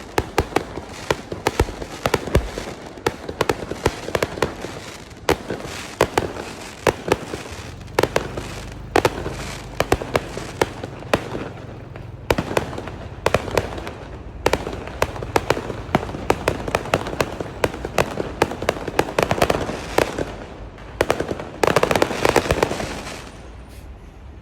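Fireworks display: many sharp, irregular bangs with crackle, packed most densely shortly before the end, then dying away near the end.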